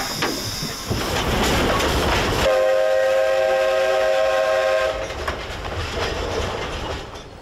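Narrow-gauge steam locomotive: a rush of steam hissing, then about two and a half seconds in its whistle sounds one steady chord-like blast for about two and a half seconds, followed by a lower rumble of the train that fades.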